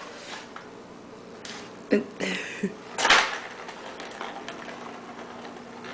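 Petmate Crazy Circle plastic track cat toy knocking and rattling as the ball inside is batted around: a few sharp knocks about two seconds in and a louder rattle about a second later.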